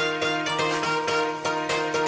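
Background music: a quick, steady run of plucked string notes.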